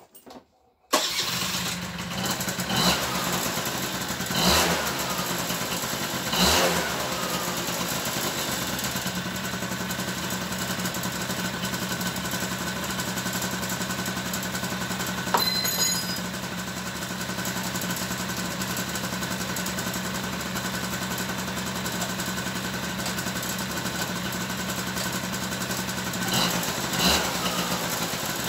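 Honda Vision 50cc two-stroke scooter engine starting about a second in, then idling steadily, with short throttle blips a few seconds in and again near the end, running on a freshly fitted replacement exhaust.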